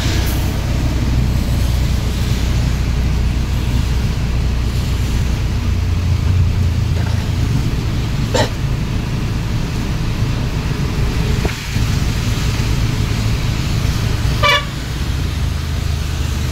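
Auto rickshaw's engine running steadily with the hiss of rain and tyres on a wet road, and two short vehicle horn toots, about eight seconds in and near the end.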